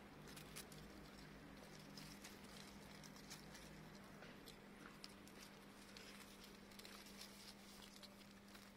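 Near silence with faint scattered crackles of dry grass and plant stems rustling as a grass stalk is waved, over a low steady hum.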